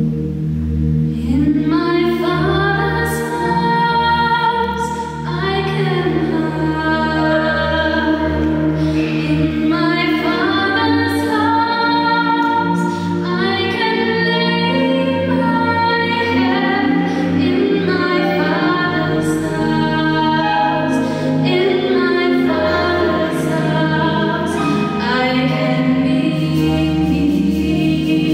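A woman singing a slow gospel song lead vocal, over steady held low backing chords that change every several seconds.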